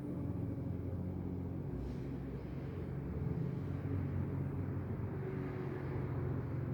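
Siren's tone sliding slowly down in pitch and fading as it winds down, its alarm having sounded only once. A steady low rumble sits beneath it.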